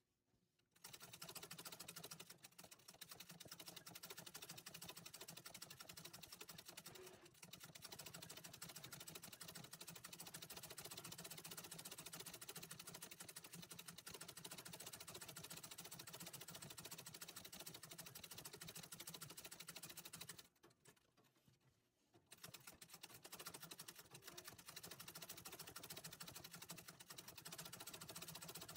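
Antique treadle sewing machine running fast, its needle stitching embroidery thread through fabric. It starts about a second in, stops briefly around twenty seconds in, then starts again.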